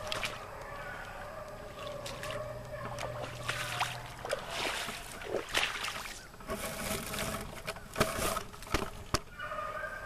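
Footsteps crunching and dry grass and brush rustling as someone pushes through tall dead weeds, with crackling that gets denser toward the middle.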